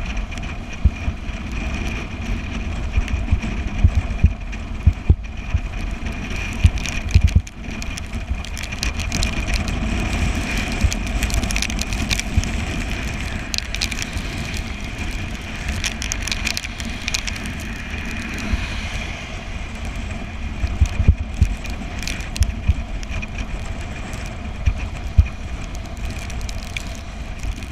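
Wind buffeting the microphone of a bicycle ridden fast downhill, with tyre and road noise and a steady high whine. The low rumble is uneven and broken by frequent sharp gusts.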